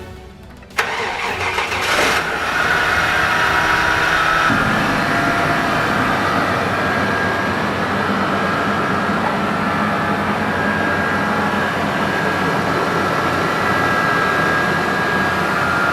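Car engine started for the first time after an alternator replacement: the starter cranks briefly, the engine catches about two seconds in, and it settles into a steady idle.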